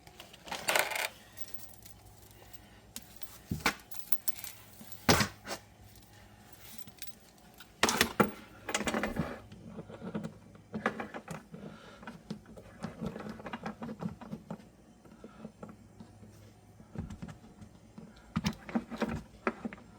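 Irregular clicks, taps and metal clinks of small plumbing fittings and tools being handled, as a fitting is taken off and a supply-line connector is readied for a shut-off valve. The loudest knocks come in clusters about five seconds and eight to nine seconds in.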